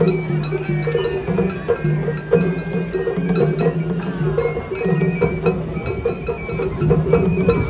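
Japanese festival float music (hayashi), with a small metal hand gong clanking in quick repeated strikes over other pitched music.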